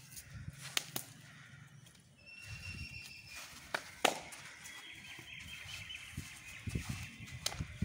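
A few sharp slaps as forearms meet while punches are blocked, spaced irregularly, with birds calling faintly in the background.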